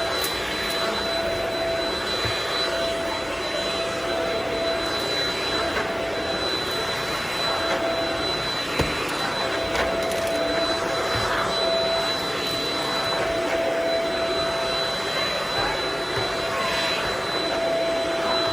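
Vacuum cleaner running steadily, a constant whine over the rush of air, with one brief knock about nine seconds in.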